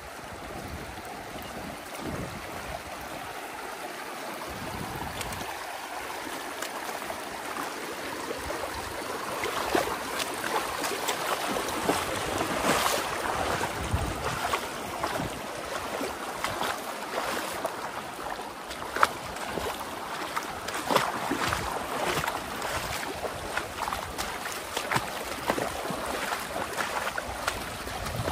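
River water flowing steadily. From about ten seconds in it grows louder, with frequent short splashes.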